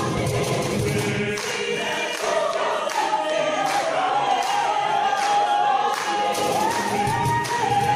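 Mixed choir of men and women singing. The low voices drop away after about a second and a half, and the upper voices then hold a long high note that steps up near the end.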